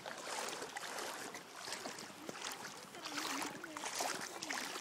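Shallow seawater sloshing and splashing as a corgi dog wades and paddles through it, with many small splashes.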